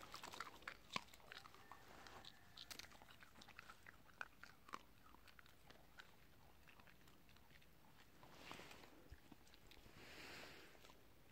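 A dog biting and chewing carob pods, faint, with sharp crunches packed into the first few seconds and thinning out after.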